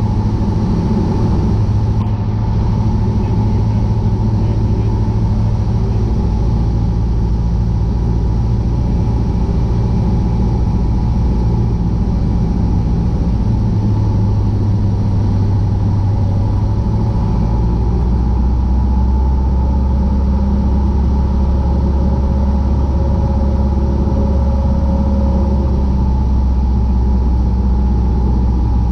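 Cessna 150's four-cylinder Continental O-200 engine and propeller droning steadily at approach power, heard from inside the cockpit. The low engine note deepens a little over halfway through.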